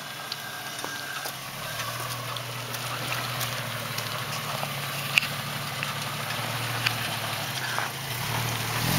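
Off-road Jeep engine running low and steady at crawling speed, its note rising a little near the end, with scattered small clicks and snaps.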